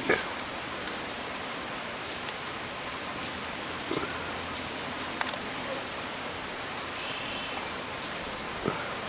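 Steady rain falling and pattering on surfaces, with a few sharper drops tapping here and there.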